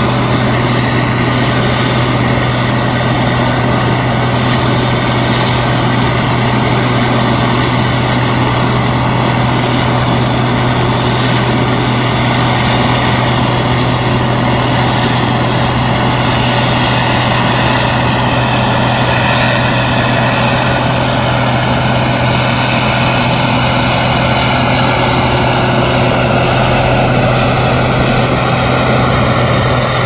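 Case IH 2366 combine harvester's diesel engine and threshing machinery running steadily while harvesting soybeans, a constant low hum over an even mechanical whir.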